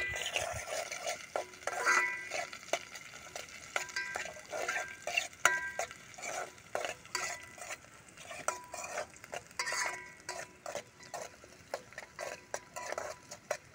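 A metal spoon stirring and scraping in a metal cooking pot, with repeated clinks against the pot that ring on briefly after each strike.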